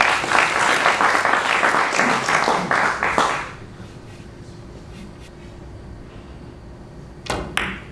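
Audience applauding in a hall, a dense patter of clapping that dies away about three and a half seconds in. Near the end come a few sharp clicks as a carom shot is played and the ivory-like balls strike.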